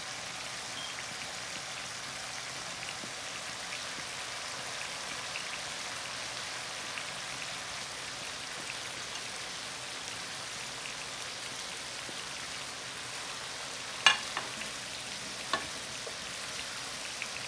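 Chicken frying in oil with onion and spices, a steady sizzle with small crackles. Two sharp knocks, the first loud, about 14 seconds in and a second and a half apart.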